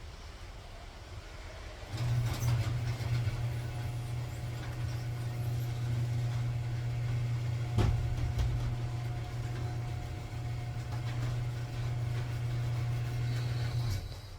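Hyundai Elantra N's turbocharged four-cylinder engine running at a steady idle, starting abruptly about two seconds in and cutting off near the end, with one sharp click about eight seconds in.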